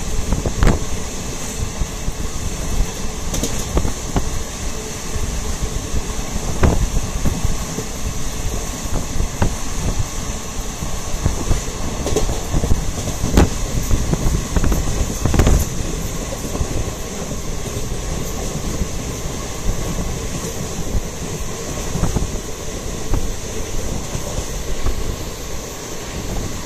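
Passenger train running along the track, heard from inside a carriage: a steady rumble and hiss of wheels on rail, with a few sharp knocks now and then.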